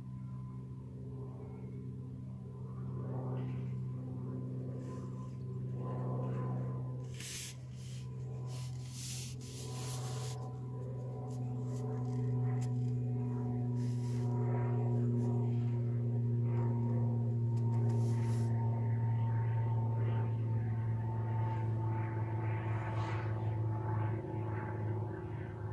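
A steady low mechanical drone made of several held tones. It swells louder about halfway through and eases off near the end. A few brief rustles come about a third of the way in.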